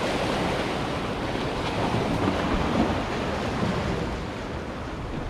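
Small waves washing and splashing against the jetty's rocks, with wind rumbling on the microphone.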